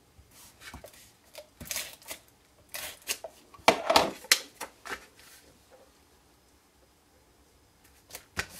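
Paper and cardstock being handled: short rustles and light taps as a square of patterned paper is lifted and pressed down onto a cardstock box, the loudest rustles clustered about four seconds in.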